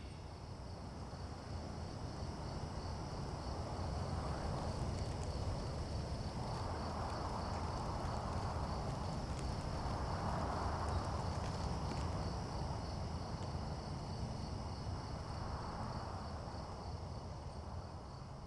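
Insects chirping in a steady, fast pulsing trill over a continuous low rumble, while a soft rush like wind swells and fades about four times.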